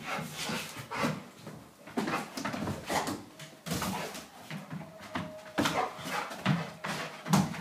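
American Pit Bull Terrier chasing a laser dot: irregular thumps of paws landing and claws scrabbling against a wall and the floor as it leaps and pounces.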